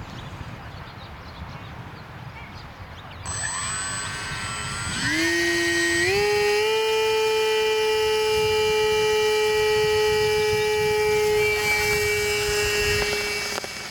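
Radio-controlled model airplane's motor and propeller spinning up in steps to a steady high whine at full throttle for a hand launch, easing off near the end as the plane climbs away.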